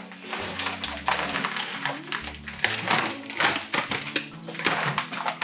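Clear plastic packaging crinkling as it is handled and opened by hand: a fast, irregular run of sharp crackles, over background music with steady low notes.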